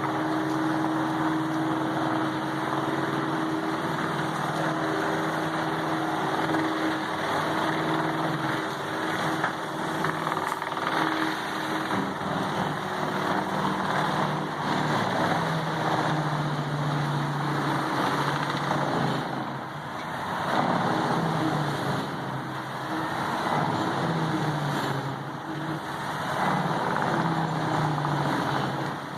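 Vermeer HG6800TX horizontal grinder running: its large diesel engine drones steadily over a continuous grinding and crunching of wood. The engine pitch sags and recovers a few times as logs load it.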